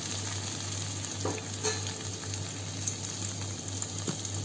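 Chopped onions sizzling in hot mustard oil in a steel pan, fried to light brown, with a spatula stirring them and clicking against the pan a few times.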